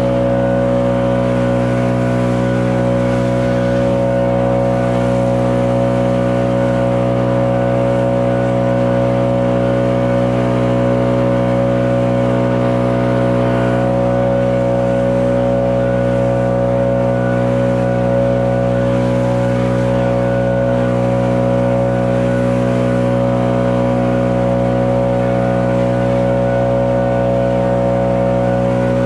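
Stihl BR 800 Magnum backpack leaf blower's two-stroke engine and fan running steadily at one unchanging pitch while it blows wet snow off a driveway.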